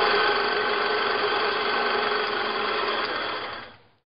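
Film projector running with a steady mechanical whir over a countdown leader, fading out near the end.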